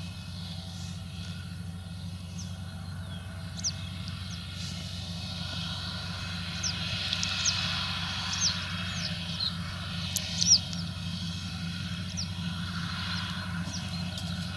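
Tractor engine running steadily under load as it pulls a slurry tanker that is spreading slurry. Birds chirp throughout, with many short, high calls clustered in the middle.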